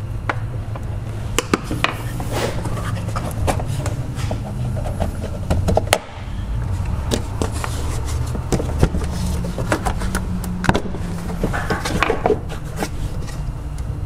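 Plastic air filter box and intake hose being worked loose and pulled from a car's engine bay: many scattered clicks, knocks and scrapes of plastic against plastic and metal. A steady low hum runs underneath.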